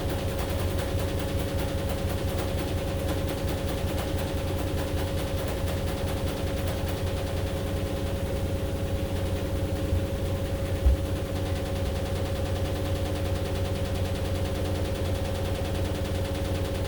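AQUA AQW-DX12M front-loading drum washing machine running mid-cycle: a steady motor hum over a low rumble with a fast, even rattle. One thump about eleven seconds in.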